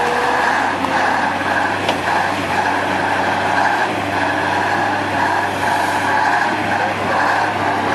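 KrAZ 6x6 truck's diesel engine running steadily under load as the truck pushes through an ice-covered river ford, its drone swelling and easing.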